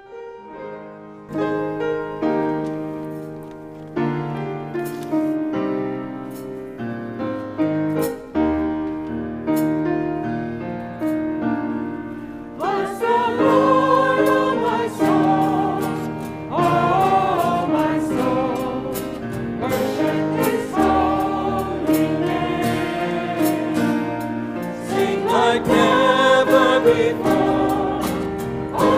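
Church music group playing a hymn: an instrumental introduction, then singing voices come in about twelve seconds in and the music grows louder.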